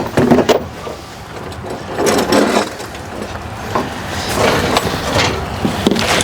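Hands working on the engine: irregular knocks and clanks of tools and metal parts, with stretches of scraping and rustling.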